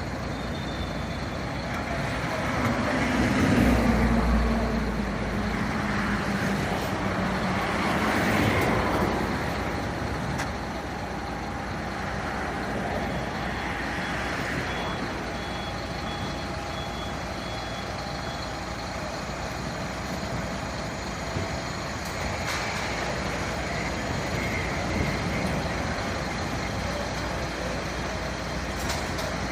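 Street traffic with heavy vehicles running and passing, loudest about three to four seconds in and again around eight seconds. Midway there is a short run of high, evenly spaced beeps, about two a second.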